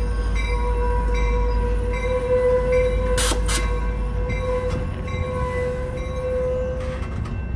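Amtrak California double-deck passenger cars rolling slowly into the station and braking to a stop, with a steady high brake squeal through most of it and a short bell-like tone repeating about every 0.8 s in the first half. Two sharp clicks come about three seconds in, and the low rumble of the train drops away soon after as it stops.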